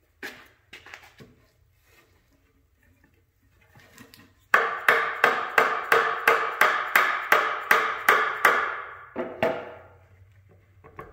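Mallet hammering on an unglued wooden chair joint to knock a leg off the dry-fitted chair: a fast, even run of sharp blows, about four a second for about four seconds, after a few light knocks near the start and followed by a couple more knocks.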